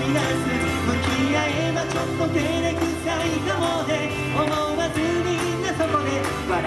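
A band playing a pop song live, with a sung melody over guitar and a steady bass line.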